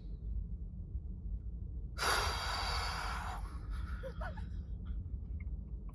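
A man breathing heavily: one long, loud breath about two seconds in as he tries to collect himself, followed by a few faint mouth clicks.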